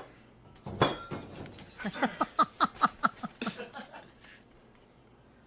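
A sudden crash about a second in, then a quick string of short, falling yelps from a man during a staged kitchen scuffle.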